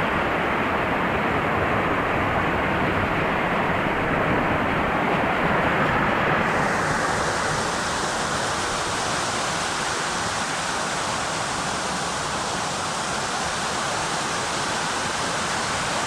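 Rushing water of a jungle waterfall and stream, a steady heavy hiss. About six seconds in it abruptly turns brighter and hissier.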